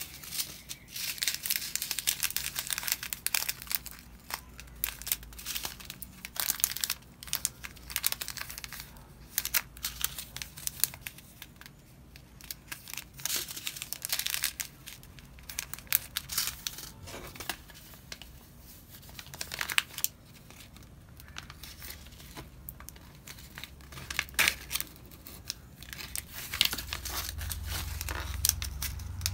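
Plastic seed packets crinkling in the hands as they are opened and the small clear bag of seeds is pulled out: irregular crackles, with quieter stretches between them.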